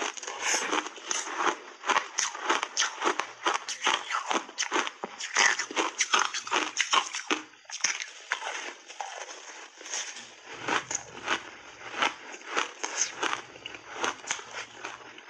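Purple block ice dipped in cream being bitten and chewed close to a clip-on microphone: rapid crisp crunches, dense for about the first half, then more spaced out.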